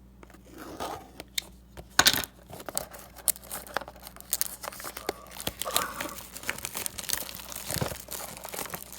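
Trading-card box packaging being torn open by hand: a run of sharp, uneven rips with crinkling and rustling, beginning about two seconds in.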